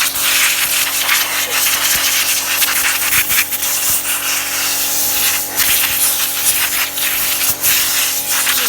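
Compressed-air blow gun blasting dust off a car's rear brake assembly: a loud, steady hiss, with a low steady hum underneath.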